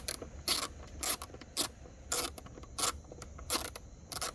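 Hand ratchet wrench backing out a small motorcycle bracket bolt: a short burst of ratchet clicking on each back swing, about every half second, eight strokes in all.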